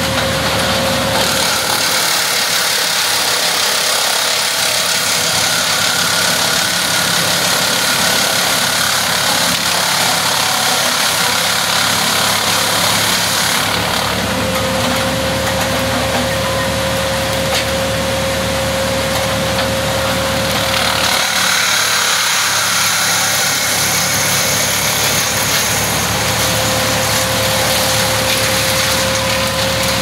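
Bandit towable wood chipper running steadily and loudly while a small tree and its leafy branches are fed in and chipped. A thin steady whine in the sound drops out and returns, and the sound changes about two seconds in and again around twenty-one seconds as branches go through.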